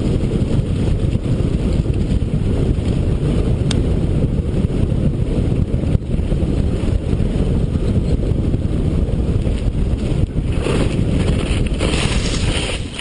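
Heavy wind buffeting on the microphone of a camera carried by a mountain biker riding fast down a gravel track, mixed with the rumble of tyres on gravel. Near the end a harsher, higher gravel hiss joins in.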